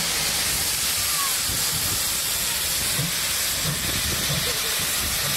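Steam locomotive drifting slowly in with a steady, loud hiss of steam blowing from its open cylinder drain cocks.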